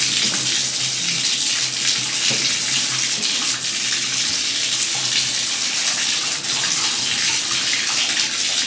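Bathtub tap running steadily, water pouring into the tub to fill a bath.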